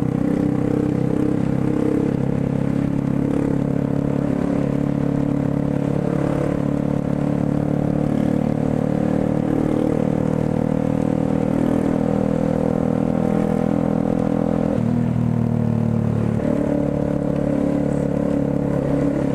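Motorcycle engine running steadily at low speed, heard from the rider's seat. Its note dips about fifteen seconds in and picks up again a second and a half later.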